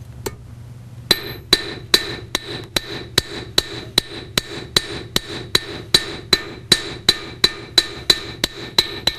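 Flat face of a forging hammer striking a copper rod on a steel anvil, a steady run of blows about two and a half a second starting about a second in, each with a bright metallic ring. The blows smooth down the grooves left by the cross peen.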